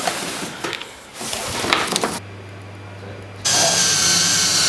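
Cardboard packaging rustling and scraping as a solar panel is slid out of its box. About three and a half seconds in, a cordless drill starts drilling, a loud steady whirring that carries on past the end.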